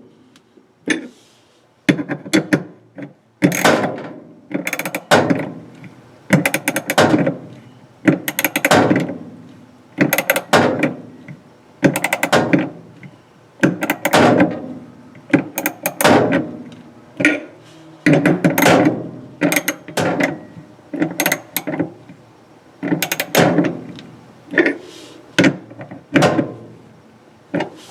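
Hand ratchet wrench clicking as it drives screws home, in repeated back-and-forth strokes: a short run of rapid clicks about once a second.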